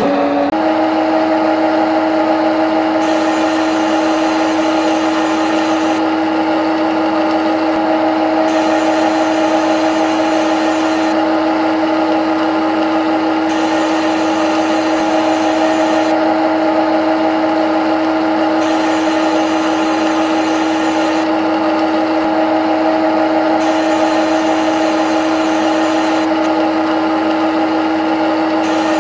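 Simulated CNC lathe machining sound: a steady, even-pitched spindle hum, with a high cutting hiss that switches on for about two and a half seconds at a time, roughly every five seconds, as the tool takes each G72 facing pass.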